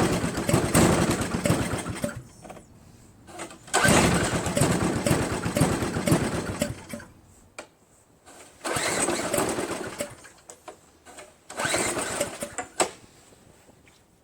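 Craftsman 522 four-cycle single-stage snowblower engine catching four times in a row, each time running for a second or a few seconds, then dying. It kind of starts but won't keep running, a sign of water in the fuel tank, fuel line and carburetor.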